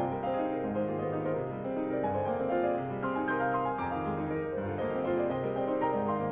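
Background music played on piano: steady chords and a melody.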